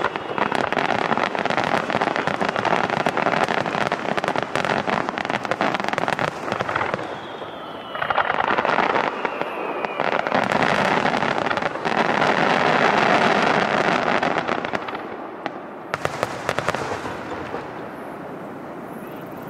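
Fireworks finale: a dense barrage of aerial shells bursting and crackling. About seven seconds in there is a brief lull with a falling whistle, then the barrage swells again. The crackle thins out over the last few seconds.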